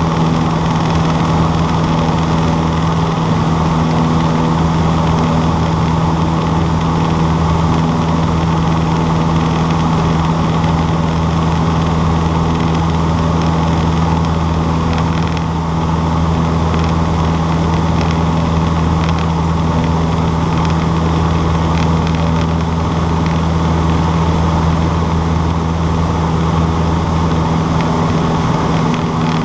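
Cessna 152's four-cylinder piston engine and propeller running steadily at an even, constant pitch.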